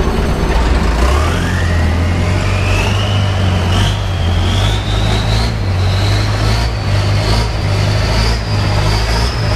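Motorboat engine pulling away and speeding up: a deep engine drone comes in about a second in, with a whine that rises steadily in pitch as the boat gathers speed.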